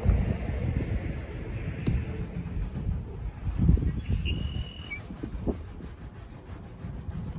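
Wind buffeting the microphone in gusts, with a single sharp click about two seconds in and a brief high, steady tone a little past four seconds.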